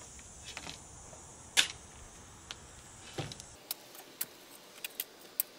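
Steel shovel blade scraping into soil and tossing it into a trench, with a few sharp scrapes or strikes, the loudest about a second and a half in. In the second half come lighter scattered ticks of dirt clods and small stones landing.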